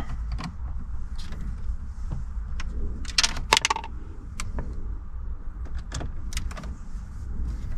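Small metal clicks and rattles of a screwdriver and loose bolts being handled while dashboard trim bolts are undone, with a louder clatter about three seconds in, over a low steady rumble.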